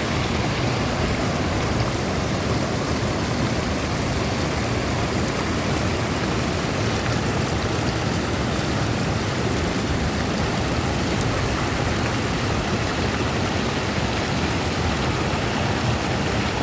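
Waterfall and rushing stream water: a steady, unbroken rush of falling water.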